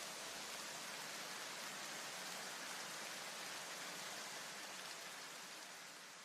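A steady, even hiss like rain or static, fading away near the end.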